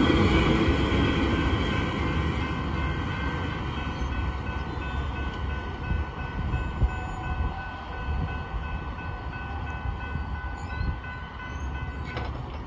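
Autorack freight cars rolling past on steel wheels and rails, the rumble fading steadily as the end of the train moves away. A faint, thin, steady high ringing hangs over the fading rumble.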